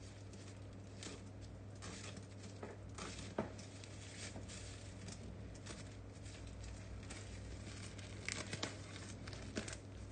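Plastic wrapping and packing tape crinkling and tearing in irregular rustles as they are pulled off the top of a shipping box, with a few louder sharp snaps, one about three seconds in and several near the end.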